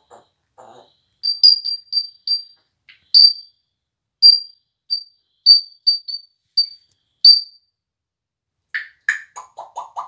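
African grey parrot giving about a dozen short, sharp high-pitched whistled chirps at irregular spacing, then near the end switching to a lower, fast stuttering run of clicking sounds.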